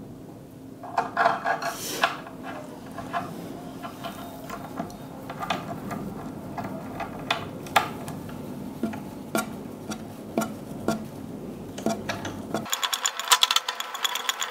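Hand screwdriver driving screws into pre-drilled holes to fix a cabinet door hinge: irregular clicks and short squeaks of the screw and driver turning in the wood panel. About two seconds before the end the background hum drops out and a quick, busy high-pitched rattling begins.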